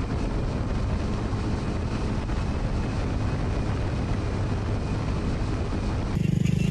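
A steady, even rushing noise with a low rumble. About six seconds in, it gives way to a small motorcycle engine running steadily: the Honda Super Cub 125's single-cylinder engine.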